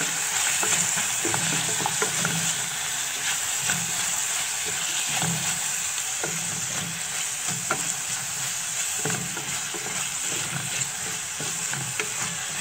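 Sliced carrots, onion and green pepper sizzling steadily in hot oil in a metal pot, stirred with a wooden spoon that scrapes and clicks against the pot over and over.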